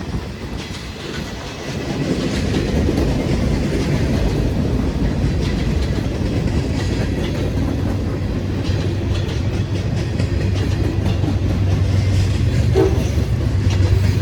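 CSX freight trains passing on the double track, wheels clicking over the rails with a steady low rumble. The rumble grows louder about two seconds in, and a low drone builds in the last few seconds.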